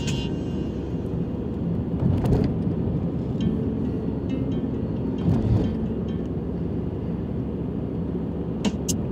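Steady low rumble of a car driving, with a couple of brief louder bumps about two and five seconds in.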